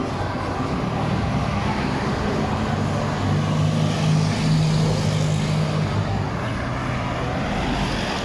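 Street traffic with a nearby vehicle engine running, a steady low hum that grows louder around the middle and then fades.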